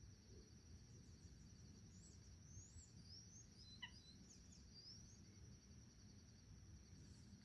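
Faint outdoor ambience: a steady high insect drone, with a bird giving a series of short, quick chirps in the middle.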